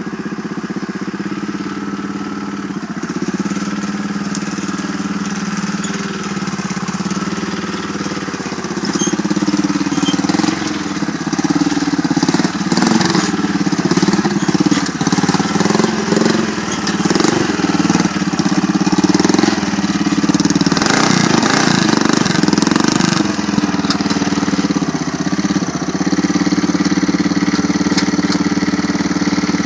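Small engine of a custom off-road mud mower, a lawn tractor on big knobby tyres, running under load as it is driven over rough, grassy ground. Its pitch rises and falls through the middle as the throttle and load change, then evens out near the end.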